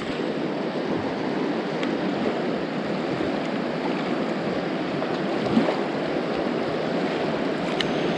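Fast mountain river rushing, a steady even sound of running water.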